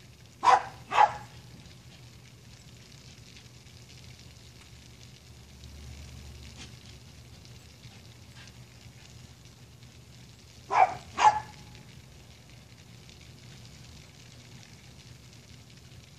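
A dog barking: two barks in quick succession, then two more about ten seconds later, over a steady low background hum.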